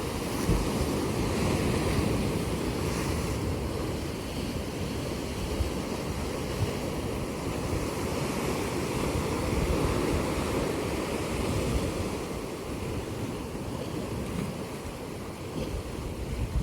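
Ocean surf washing onto a black sand beach: a steady rush of breaking waves that swells a couple of seconds in and again about ten seconds in, then eases off a little toward the end.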